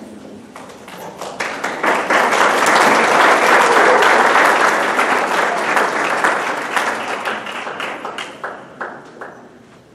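Audience applauding: the clapping starts about a second in, builds to a peak and tapers off near the end.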